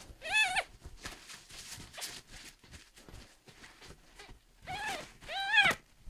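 A ten-day-old kitten mewing: three short, high cries, one right at the start and two close together near the end.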